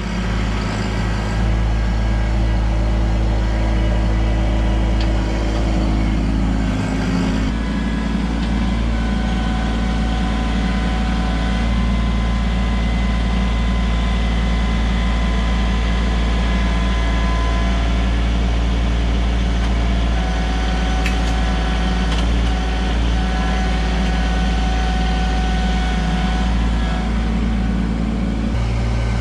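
Kubota LX2610 compact tractor's diesel engine running steadily, its note shifting about seven seconds in and again near the end.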